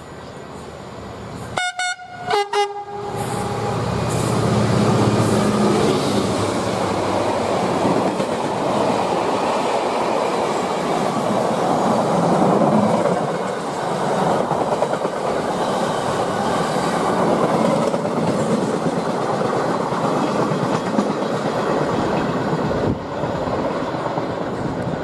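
Class 66 diesel freight locomotive sounds two short horn blasts about two seconds in. Its engine then runs loudly as it passes, followed by the long, steady clatter and rumble of a rake of tank wagons rolling by.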